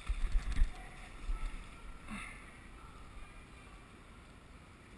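Steady rush of flowing river water, with low knocks and rumble on the microphone in the first half-second.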